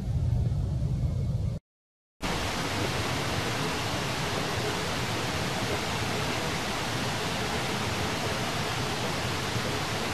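A low rumble that cuts out about a second and a half in; after a short gap of silence, a steady, even hiss with no other events.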